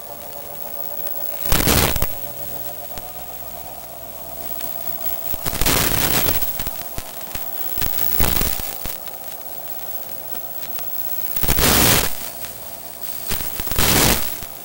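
Static from a wireless camera's radio link: a steady electrical hum broken by five loud bursts of static, each about half a second to a second long, as the signal breaks up.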